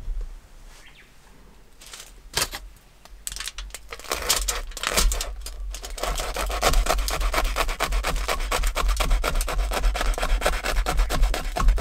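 Kitchen knife sawing through the crisp toasted crust of a grilled hot sandwich: a fast, dense run of rasping strokes that starts about three to four seconds in, after a few light clicks.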